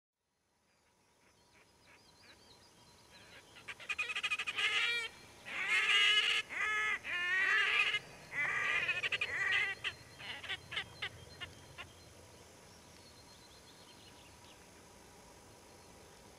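A pair of red-necked grebes calling in courtship: a series of loud wailing calls broken by fast chattering runs, starting about three seconds in and dying away in short notes about twelve seconds in.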